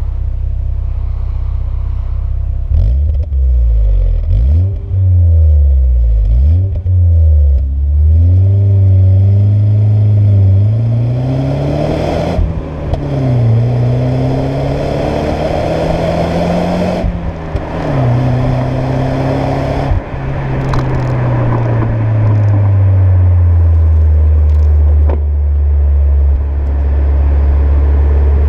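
BMW E36 318i four-cylinder engine through an aftermarket sport exhaust: a few quick throttle blips, then hard acceleration with the revs climbing and dropping sharply at each of two gear changes, then settling to a steadier, slowly falling note.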